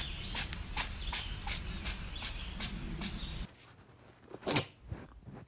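A cat sneezing: a quick run of short, sharp sneezes about three a second, then after a break a single louder sneeze about a second later.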